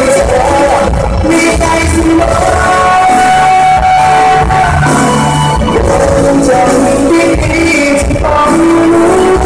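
Live Thai pop song: a male singer sings a held melody into a microphone over a full band, heard loud in a large hall and recorded on a phone, so the sound crackles and distorts a little.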